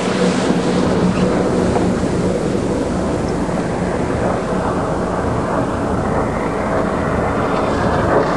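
Watercraft engine running steadily at speed, with water rushing under the hull; the higher hiss eases a little in the second half.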